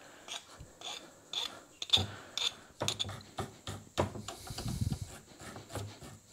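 Flat hand file scraping across the hacksawed end of a steel threaded stud in a series of short strokes, chamfering the thread end to clean off the burrs.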